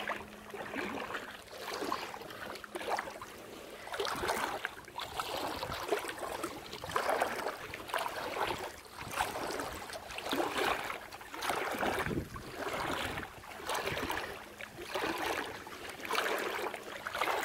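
Bare legs wading through shallow water, a swishing splash with each stride, roughly once a second.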